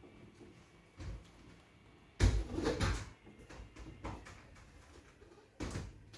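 Knocks and clattering of a glass quadrant door panel and its wall profile being handled and walked into place: a few single bumps and a louder cluster of knocks about two to three seconds in.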